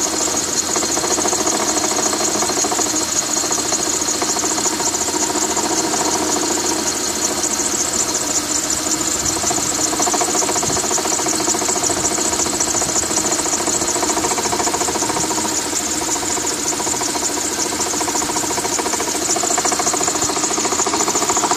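1993 Acura Legend's 3.2-litre V6 running steadily with a fast, even knock, which the owner takes for piston knock.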